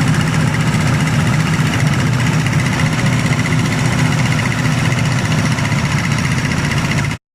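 An engine running steadily at constant speed with a fast, even pulse. It cuts off abruptly near the end.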